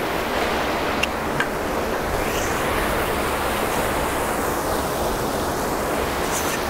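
Treated wastewater rushing and churning as it wells up out of a circular concrete outfall and spills down a channel toward the river. The rushing is steady throughout.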